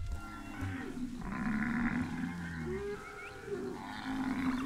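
Cattle lowing, several long overlapping moos that bend in pitch.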